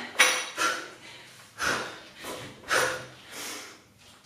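A woman breathing hard from exertion while lifting a barbell: about six quick, forceful breaths in and out, with no words.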